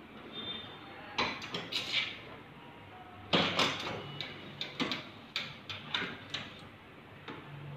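Manual cup sealing machine being worked. The cup tray slides in and out with rattling metal clicks, and there is a loud clunk about three seconds in as the sealing handle is pressed down.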